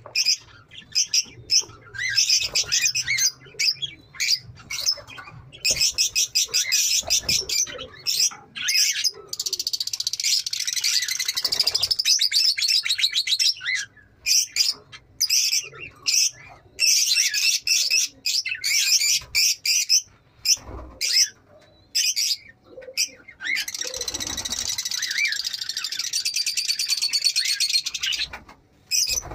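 A flock of Fischer's lovebirds chattering: rapid, shrill chirps and trills coming in bursts with short pauses between them.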